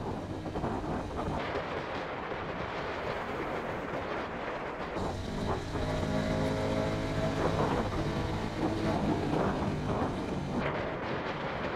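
Motorcycle on the move along a highway: wind rushing over the microphone over the running engine. From about five seconds in, a steadier engine note with several pitches comes through more clearly and a little louder, then fades near the end.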